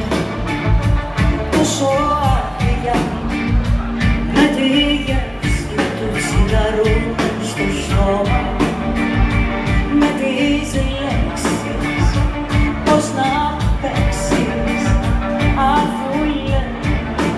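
Live band music: a woman singing lead into a microphone over violin, electric guitar, bass and drums with a steady beat.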